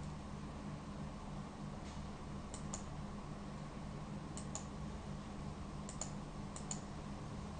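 Computer mouse clicking: four quick pairs of sharp clicks spread a second or two apart, over a steady low hum.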